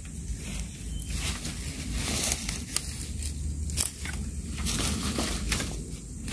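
Rustling and crackling of dry leaves and a bundle of thin wooden poles being handled and tied with a plastic strap, with a couple of sharp knocks of pole on pole near the middle.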